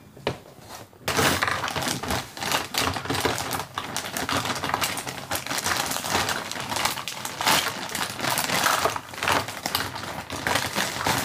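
Dense crinkling and rustling of something handled close by, a fast run of small crackles that starts about a second in and keeps going.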